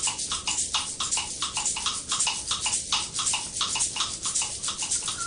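Vervet monkeys chattering in alarm at a predator: a rapid run of short, harsh calls, about six a second.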